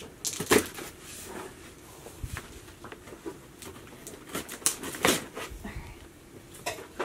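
Cardboard box being handled and opened: scattered rustles, scrapes and sharp knocks as the top flaps and tape are worked open. The sharpest knocks come about half a second in and about five seconds in.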